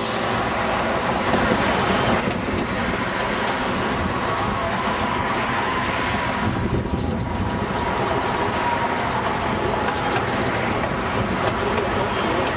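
Gas-powered miniature railroad train running steadily, heard from aboard, with cars passing on a busy road alongside.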